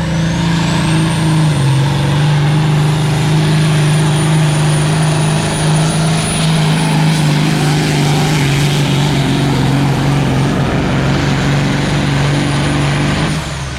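Semi truck's diesel engine at full throttle pulling the sled, with a high turbo whistle that climbs in the first second and then holds. Engine and whistle both drop away near the end as the pull finishes.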